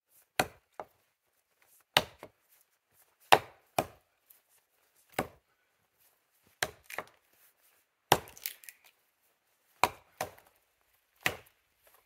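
An axe chopping into wood, about a dozen sharp blows roughly one every second and a half, some followed quickly by a lighter second hit.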